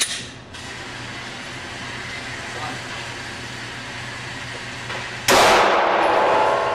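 A sharp click at the very start, then a Glock 19 pistol shot about five seconds in: a sudden loud bang that trails off slowly over more than a second.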